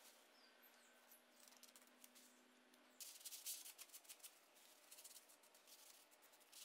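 Near silence, then from about three seconds in a faint, irregular rubbing: a cloth wiping excess silicone sealant off the steel top plate of an anvil stand.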